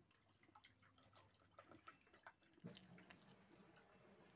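Near silence, with faint, scattered small wet clicks from quiet eating by hand: fingers working rice and curry, and chewing. A soft knock comes about two and a half seconds in.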